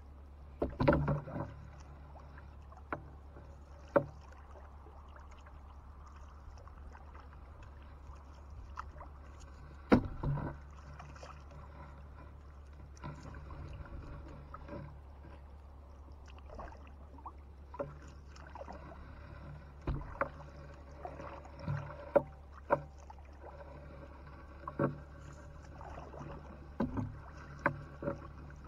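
Irregular sharp knocks and small splashes as a fishing net with a lead-weighted rope is paid out over the side of a small wooden boat into the water, over a steady low hum.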